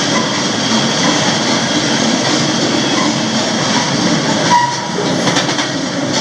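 Freight train running at speed, heard from the end platform of a covered hopper car: a steady, loud rumble and rattle of steel wheels on rail and of the cars themselves. A brief high squeal cuts in about four and a half seconds in.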